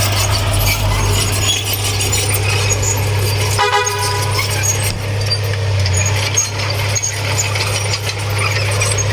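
Heavy diesel earthmoving machinery running steadily, a low constant drone, with one short vehicle horn toot about three and a half seconds in.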